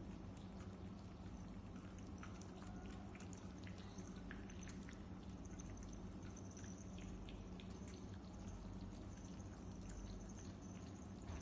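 Cats eating wet food and licking, with many small wet smacks and clicks over a steady low hum.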